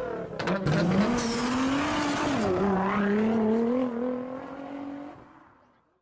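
Car engine revving up after a couple of sharp cracks and holding at high revs, its pitch wavering, then fading out over the last couple of seconds.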